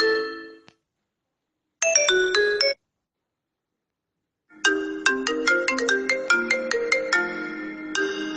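Phone ringtones played one after another: a xylophone-style melody fades out in the first second, a short burst of quick notes comes in about two seconds in, and after a gap of silence a new ringtone tune of quick struck notes starts about halfway through and carries on.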